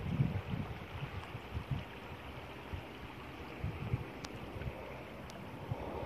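Shallow river water flowing and rippling in a steady hiss, with wind buffeting the microphone in irregular low rumbles, strongest near the start.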